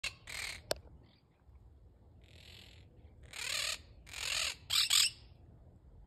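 Monk (Quaker) parakeets at their stick nest giving harsh, grating squawks, about five calls with the loudest pair near the end. There is a single sharp click early on.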